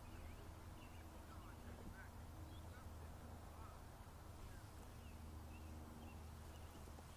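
Faint outdoor ambience: scattered short bird chirps over a steady low rumble.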